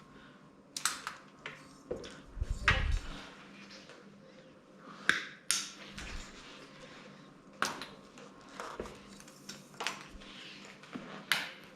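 Small tools and parts being handled on a workbench: a dozen or so sharp clicks and light metallic taps at irregular intervals, with a dull thump about two and a half seconds in.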